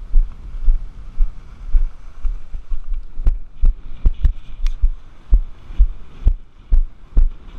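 Wind buffeting the microphone in irregular deep thumps. From about three seconds in, a string of sharp snaps as a kitesurfing kite's canopy is lifted and flaps in the wind.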